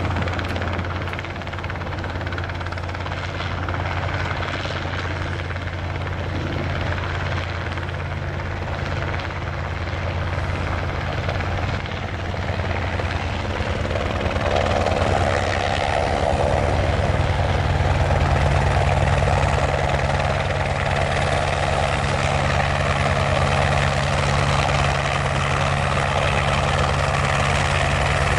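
Airbus AS350B3 single-engine turboshaft helicopter coming in to land, its main rotor beating steadily under the engine's noise. It grows louder about halfway through as it draws close and settles into a low hover.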